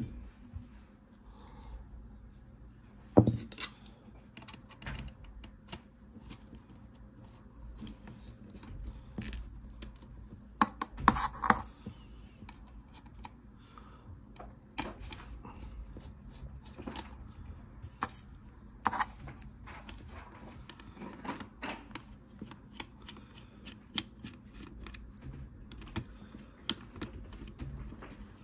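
Scattered small clicks, taps and scrapes of metal parts and a small screwdriver as an Apple USB SuperDrive's aluminium case and slim optical drive are handled and unscrewed. A sharp knock about three seconds in is the loudest, with a cluster of louder clicks around eleven seconds.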